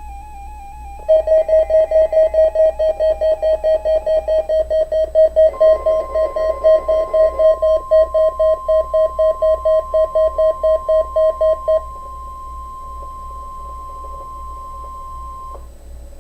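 Emergency Alert System test tones: a rapid electronic beeping, about four beeps a second, starts about a second in and runs for about eleven seconds. About five seconds in, a steady single-pitch attention tone joins it and holds for about ten seconds before cutting off.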